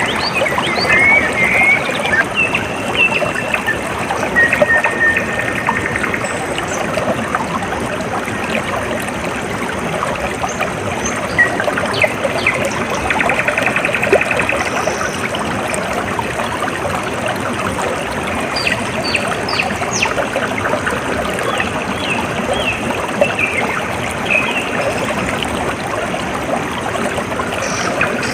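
Water trickling and splashing steadily, like a small stream. Birds chirp and trill over it now and then, most near the start, in the middle and toward the end.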